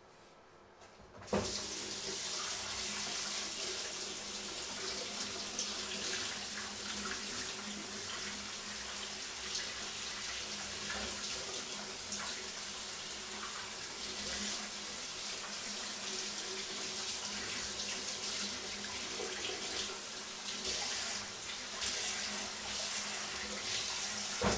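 Kitchen tap running into a stainless sink, turned on suddenly about a second in and shut off at the end, with the stream broken up as things are rinsed under it.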